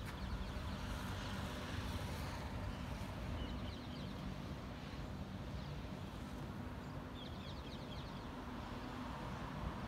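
Outdoor ambience: a steady low rumble, with brief bird twitters about three and a half seconds in and again around seven seconds.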